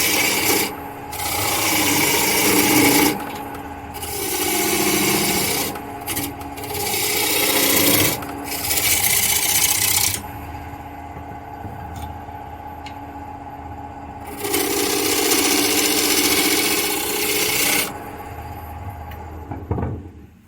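Wood lathe running with a steady hum while a turning gouge cuts a spinning walnut and hemlock blank. The tool shaves the wood in repeated passes of one to three seconds each, with a longer pause between cuts about halfway through.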